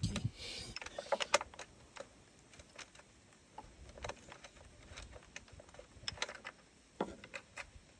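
Hex-bit screwdriver undoing a small bolt in a motorcycle side panel: faint, irregular small metallic clicks and ticks as the tool turns and shifts in the bolt head.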